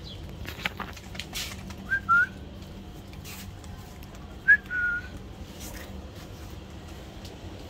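A person whistling twice, about two and a half seconds apart, each time a short note followed by a slightly longer one: a call to stray cats that food is coming.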